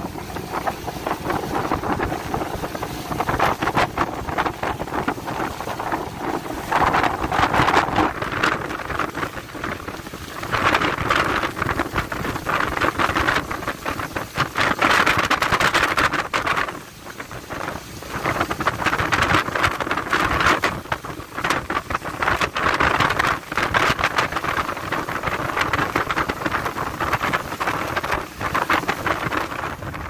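Strong wind buffeting the microphone in uneven gusts over a rough sea, with waves and spray washing against the fishing boat.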